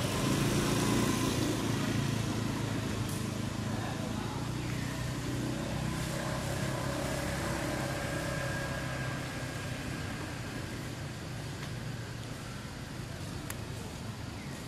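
Low, steady hum of a motor vehicle engine running, loudest at the start and slowly fading, with a couple of faint sharp clicks.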